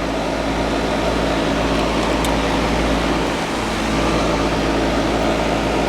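Steady hum and whir of air-conditioning condenser equipment running, with a low electrical drone under it.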